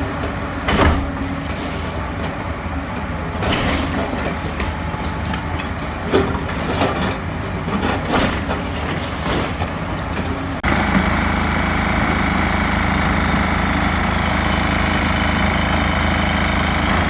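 Excavator engine running while it demolishes a brick and block building, with knocks and crunching of masonry being pushed in and pulled down. About ten seconds in the sound switches suddenly to a steadier, slightly louder engine noise.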